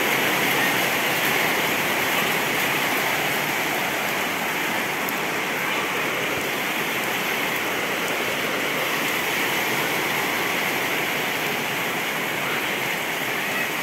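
Heavy rain falling steadily, an even unbroken wash of noise.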